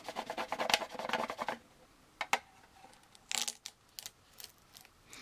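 Scotch tape being peeled off the plastic hull of a model kit, a rapid crackling for about a second and a half as the adhesive lets go and pulls at the old decals. A few light clicks and taps from handling the model follow.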